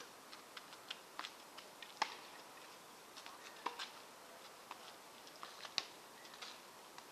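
Tennis on an outdoor hard court heard from a distance: scattered sharp pocks and ticks of the ball off rackets and the court. The two loudest come about two seconds in and just before six seconds.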